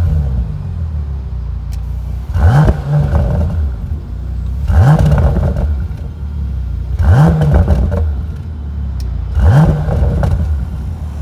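2019 Bentley Continental GT Convertible's twin-turbocharged engine idling just after start-up, heard at the exhaust tailpipes. It is revved four times with short throttle blips, about every two and a half seconds; each is a quick rising note that drops back to idle.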